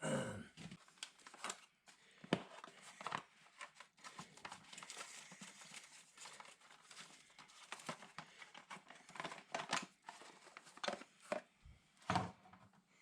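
Irregular clicks, knocks and rustling from hand work on brake parts, with a louder knock at the start.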